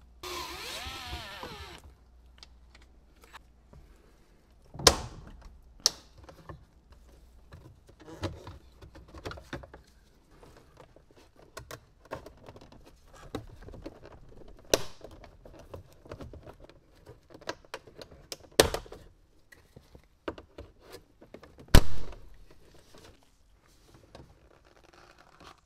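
Parts and tools being handled during a car shifter job: a brief whir at the start, then irregular clicks and knocks with several sharp thunks, the loudest near the end.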